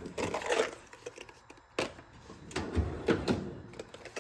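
Several sharp clicks and knocks of steel socket adapters in a plastic tray being picked up and set down in a tool chest drawer.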